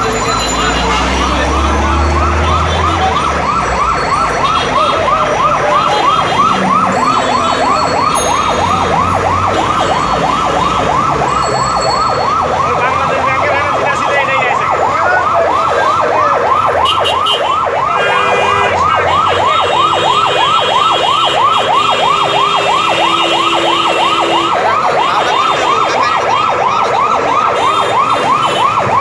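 Emergency vehicle siren sounding a fast, repeating yelp at about four sweeps a second, with a low vehicle rumble in the first few seconds.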